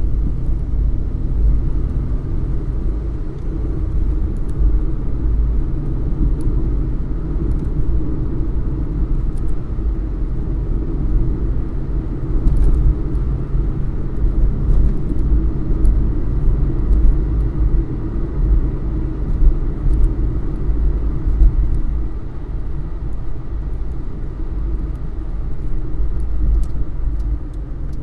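Car engine running, heard from inside the cabin: a steady low rumble.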